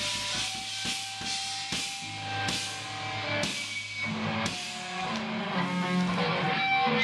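Live punk-thrash band playing: electric guitar and drum kit, with cymbal crashes about once a second.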